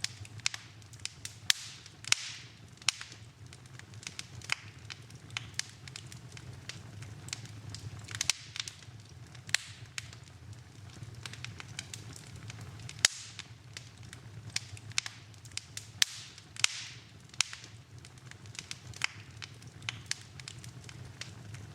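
Wood fire in a fireplace crackling, with irregular sharp pops and snaps, a few much louder than the rest, over a low steady hum.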